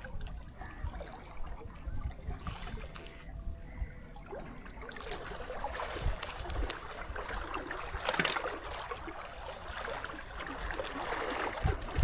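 Water lapping and trickling along the shore, a steady crackling wash that grows fuller about halfway through, with low rumbles underneath.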